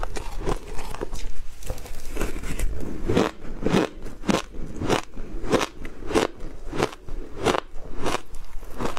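Close-up crunching of mouthfuls of powdery ice being bitten and chewed. It comes as a steady series of sharp crunches, fainter at first and then about two a second.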